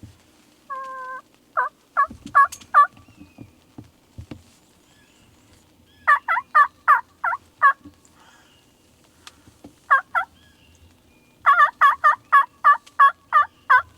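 Wild turkey hen yelping: a short held note, then several runs of evenly spaced yelps, about three or four a second, with pauses between the runs.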